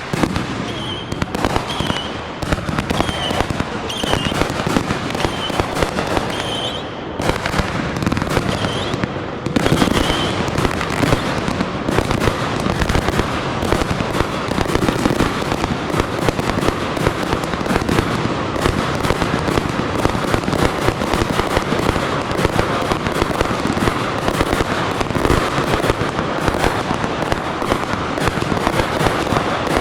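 Fireworks display going off nonstop: a dense barrage of bangs and crackling with no gaps, grand-finale style. Short high chirps repeat over about the first nine seconds.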